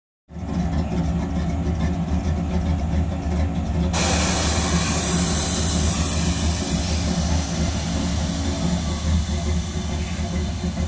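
1965 Chevy C10's V8 idling steadily. About four seconds in, a hiss of escaping air starts and runs on as the AccuAir air-ride system vents its air bags and lowers the truck.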